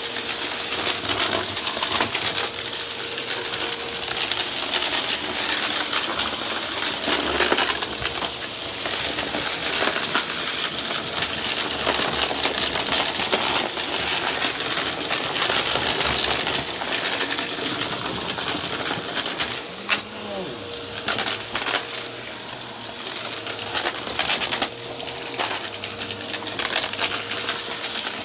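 Upright vacuum cleaner running over carpet, its brushroll crunching and rattling scattered dry debris up into the machine: a dense crackle of small hard bits over a steady motor whine.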